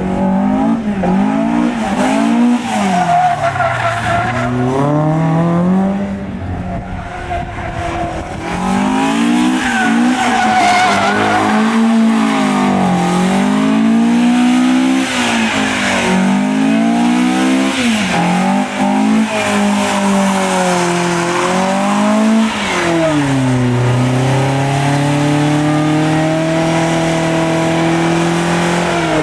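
Toyota AE86's 4A-GE four-cylinder engine revving up and down over and over as the car is drifted in circles, with the rear tyres spinning and squealing. Near the end the revs settle and are held high and steady through a long doughnut.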